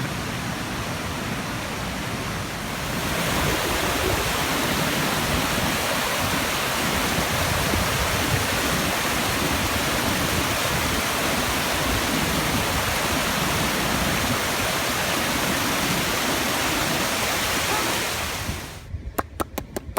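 Tosno river waterfall, its water rushing in a steady, dense hiss that grows louder about three seconds in and drops away sharply near the end. A few short clicks follow.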